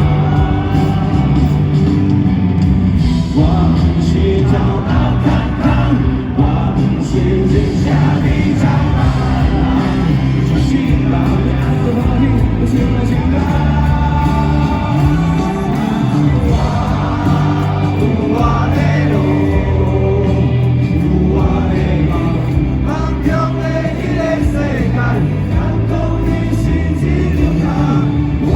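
Rock band playing a song live with a lead singer, loud and continuous.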